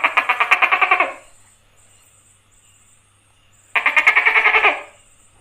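Tokay gecko calling: two rattling bursts of rapid pulses, about a dozen a second, one running into the first second and another near the end, each lasting about a second.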